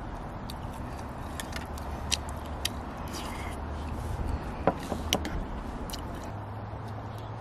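A metal spoon clinking and scraping against a stainless steel camping cup while eating rice soup: a string of short sharp clinks, the loudest two about five seconds in. A steady low hum runs underneath.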